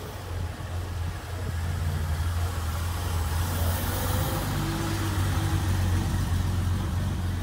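Mercedes-Benz 300SL Gullwing's straight-six engine running at low speed as the car rolls slowly past, growing louder about two seconds in as it comes close.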